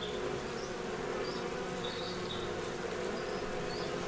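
A swarm of wild bees buzzing: a steady, even hum from many bees clustered together around their queen.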